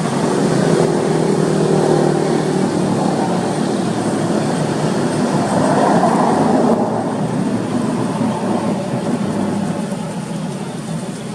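A motor engine running steadily, loudest about six seconds in and then easing off.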